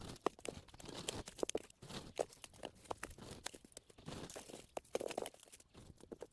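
Cut grass and weeds being handled, crunching and rustling with irregular snaps and crackles.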